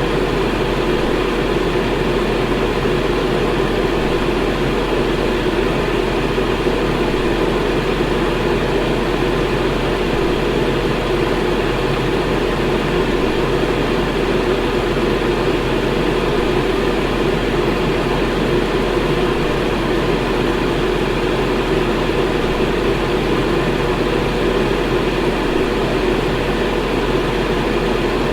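Electric fan running at a constant speed: a steady whooshing hum of moving air with a low motor drone underneath, unchanging throughout.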